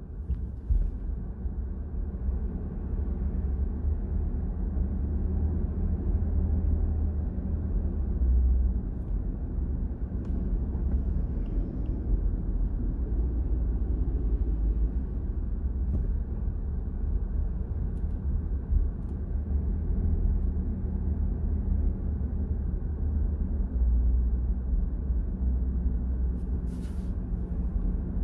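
Steady low rumble of a car driving along a town street: engine and tyre noise. A short hiss sounds near the end.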